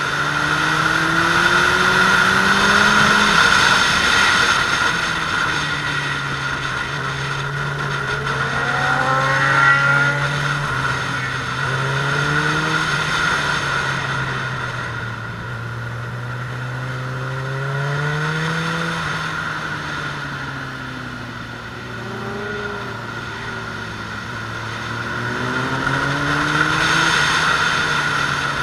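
Suzuki Bandit 600S's inline-four engine under riding load, its pitch climbing several times as the throttle opens and dropping back between. Wind noise on the microphone.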